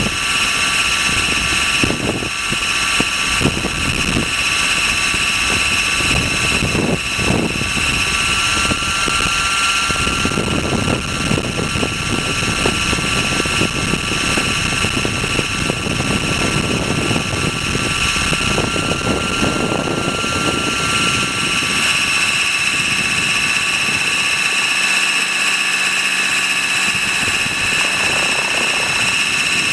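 Trex 600 RC helicopter heard from a camera mounted on its own landing skid: a steady high-pitched whine from the running drivetrain and rotor. Gusty wind and rotor-wash rumble buffet the microphone underneath it.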